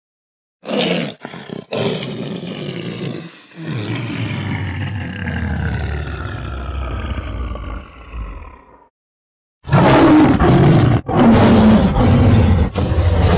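Monster roar sound effects, three in a row: a short roar, then a long one that slowly falls in pitch, then after a brief silence a harsher, louder roar.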